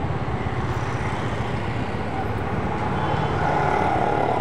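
Street traffic: a steady rumble of road vehicles, growing louder about three seconds in as a vehicle with a steady engine note comes closer.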